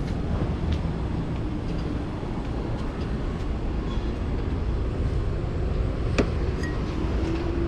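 City street noise: a steady rumble of passing traffic, with a sharp click about six seconds in.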